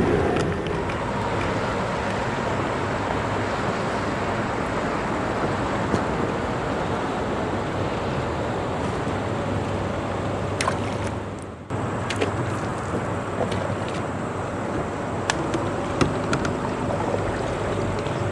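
Steady outdoor wind and water noise with a low hum beneath it and a few faint clicks. The sound dips and cuts abruptly about two-thirds of the way through.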